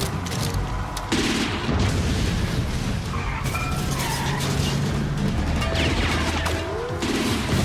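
Action-film car-chase soundtrack: score music mixed with car engine and tyre-skid effects, with a sudden loud hit about a second in.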